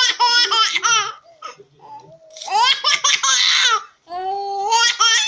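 Baby laughing in three bursts of rapid, high-pitched giggles, the last one a longer held sound ending about a second before the end.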